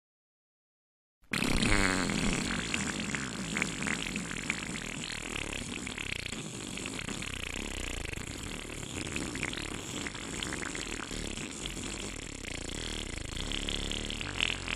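Air rushing out of a loose party balloon as it flies about, a long fart-like raspberry that starts about a second in and goes on without a break.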